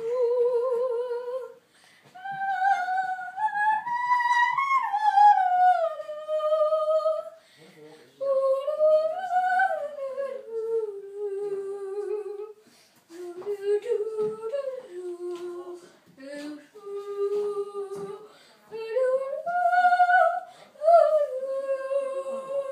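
A young girl singing a wordless tune, with long held notes that slide up and down and short breaks between phrases; the first note wavers.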